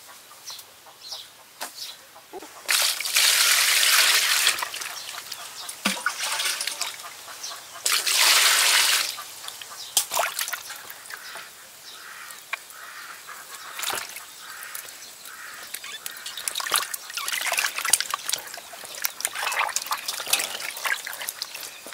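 Water splashing and sloshing in a metal basin as frogs are handled and washed by hand, with small wet slaps and crackles throughout and two longer rushes of splashing water, about three and eight seconds in.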